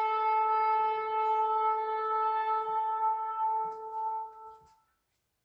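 Shofar sounding one long steady blast at a single pitch, fading and stopping about four and a half seconds in.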